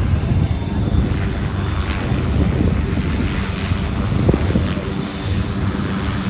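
Helicopter running on the ground with its rotor turning: a loud, steady low drone with a thin, steady high whine over it.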